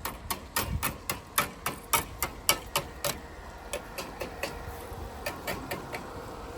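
A quick run of sharp clicks or light taps, about three or four a second, loudest over the first three seconds and fainter and more spaced after that.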